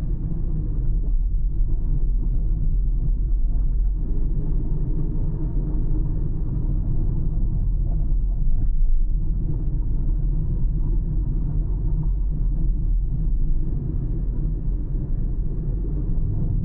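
Car driving at a steady pace: an even low rumble of tyre, road and engine noise that does not change.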